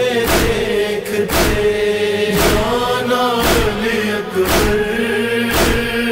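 A crowd of men chanting a Muharram noha (mourning lament) in unison, with loud, sharp group chest-beating (matam) slaps landing about once a second.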